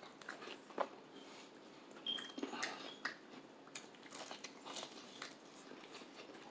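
Close, faint eating sounds of crispy breaded fried chicken being bitten and chewed: a scatter of small irregular crunches and crackles, busiest a couple of seconds in.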